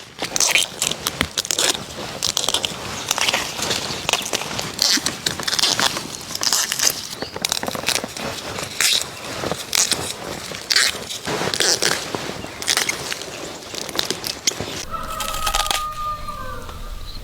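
Repeated crackling, snapping and rustling of plant stalks and leaves being handled, with a rooster crowing near the end.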